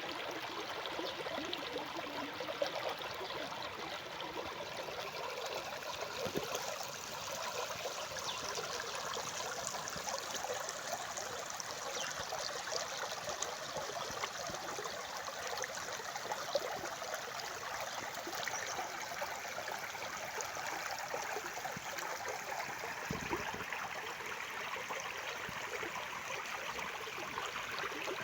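Stream water flowing steadily, an even rushing and trickling.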